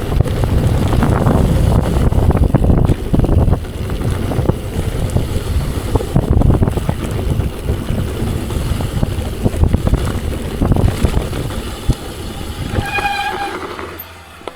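Mountain bike riding downhill at speed: wind rushing over the microphone with tyre rumble and rattling knocks over bumps in the trail. A short squeal about 13 seconds in, then the noise falls away.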